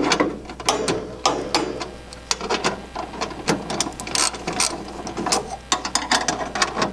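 Hand ratchet wrench clicking in repeated quick strokes, loosening the bolts of the stock shock tower brace.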